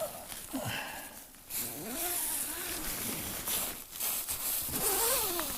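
Blizzard wind buffeting the microphone in uneven gusts.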